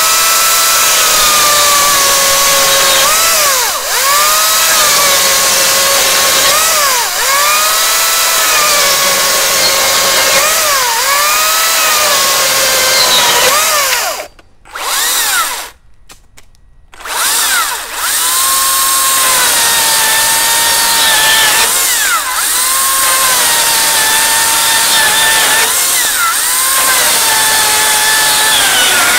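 Makita XGT 40V 18-inch cordless chainsaw running at full speed and cutting through a wooden 4x4 post, its electric motor whine dipping briefly in pitch every few seconds as the chain bites into the wood. About halfway through, the sound cuts out twice. Then a Makita LXT 36V (XCU03) cordless chainsaw runs and cuts the same post with a slightly lower whine.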